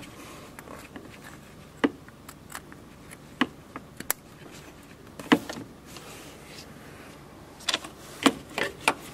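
Scattered sharp clicks and knocks of plastic and metal parts being handled in a car engine bay, around the thermostat housing, hoses and connectors. The clicks come singly every second or so, with a quicker cluster near the end.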